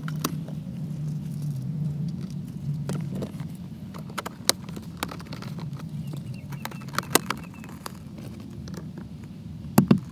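Plastic center console trim being pressed and clipped into place, with several sharp clicks and knocks as the clips snap in and the pieces are handled, over a steady low hum.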